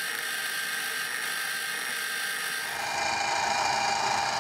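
Grizzly benchtop mini mill's spindle running with a steady high motor whine while a center drill cuts a starting hole in a mild steel part. About two-thirds of the way through the pitch changes and the sound grows a little louder.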